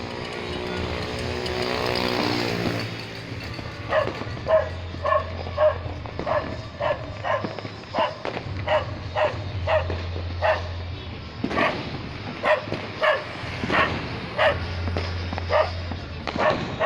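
A dog barking over and over, about twice a second, starting about four seconds in. Before it, a long steady tone is held for the first few seconds.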